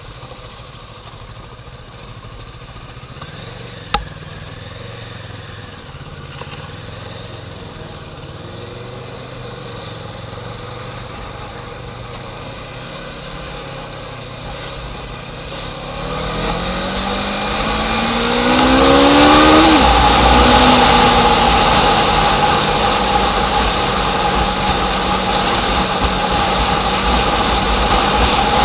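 A vehicle engine running low and steady, with a sharp knock a few seconds in. A little past halfway it revs up in several rising sweeps, grows louder, and keeps running loud.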